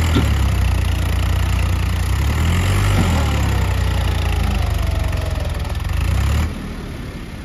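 Swaraj 744 XT tractor's three-cylinder diesel engine running under load in mud with the loaded timber trailer hitched, a steady low drone whose pitch rises and falls a little. About six and a half seconds in, the sound drops abruptly to a lower level.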